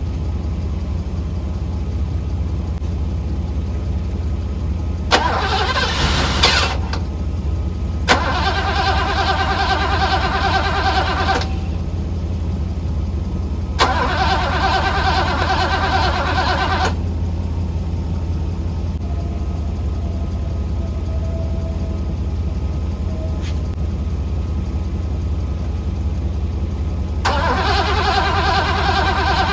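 Mercedes W126 SEC starter cranking the engine in four separate bursts of a few seconds each, the engine never catching, over a steady low hum. The non-start, with the fuel pump relay bypassed, is taken by the owner as a failed fuel pump.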